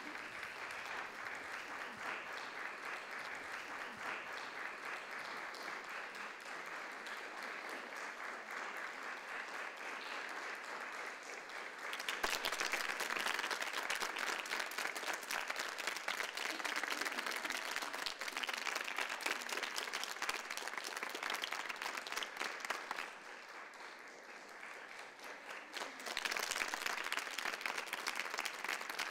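Theatre audience applauding a curtain call, a dense, even clatter of many hands. It grows louder about twelve seconds in, dips for a few seconds near the end, then swells again.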